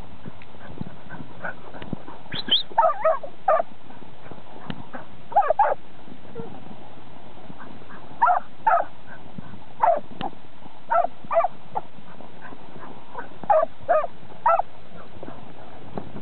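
Kelpie barking in short, sharp barks, in clusters of two or three every few seconds.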